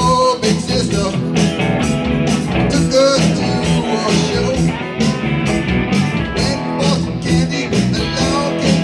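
Live band playing a rock and roll song on electric guitars and bass guitar, with a steady beat.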